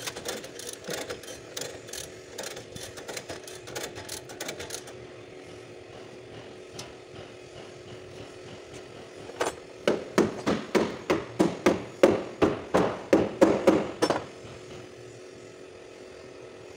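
Lever chain hoist ratcheting in rapid metallic clicks, then after a pause a run of about a dozen louder, sharper metal knocks, about three a second.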